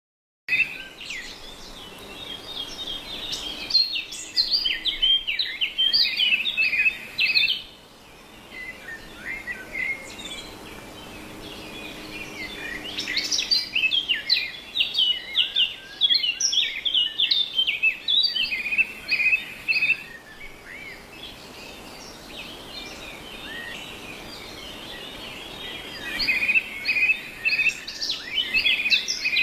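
Cockatiels chirping in rapid, overlapping bouts of short calls, with quieter stretches between the bouts.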